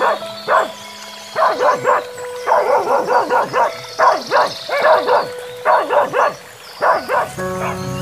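Several dogs barking excitedly, in quick runs of three to five high barks again and again, stopping about seven seconds in.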